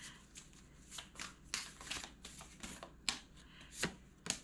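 A deck of tarot cards being shuffled by hand: a faint string of short, irregular card slides and snaps.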